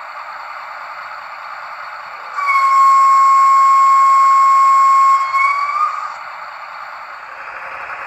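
Märklin H0 model locomotive's digital sound decoder giving one horn blast of about three and a half seconds, a loud steady tone that bends up in pitch as it ends, through the model's small loudspeaker. Under it runs the decoder's steady hissy running sound.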